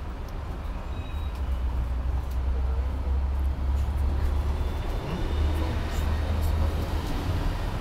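Hong Kong double-decker electric tram running along its street track, heard from the upper deck: a steady low rumble from the motors and wheels, with scattered light clicks and rattles. It grows slightly louder a couple of seconds in.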